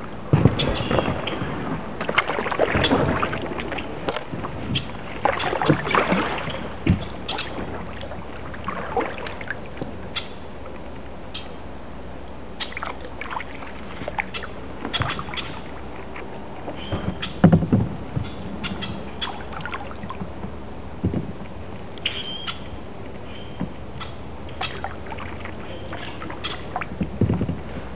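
Kayak being paddled: irregular splashing paddle strokes in the water, with occasional sharp knocks.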